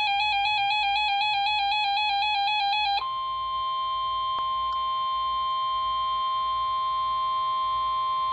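Weather alert receiver sounding a severe thunderstorm warning: an electronic alarm warbling rapidly between two pitches, switching about three seconds in to a steady, unbroken alert tone, the weather radio warning alarm that precedes the broadcast warning message.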